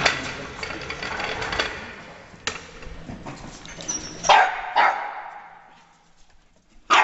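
Terrier yapping and whining while working a rat hidden in a trolley jack, with two loud sharp yaps a little after four seconds in.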